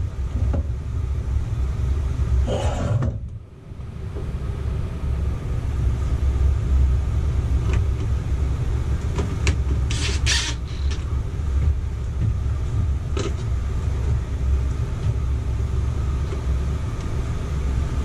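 Steady low rumble, with a few short knocks and rattles as the plastic ceiling assembly of a Coleman Mach RV air conditioner is handled and fitted, including a brief burst of noise about ten seconds in.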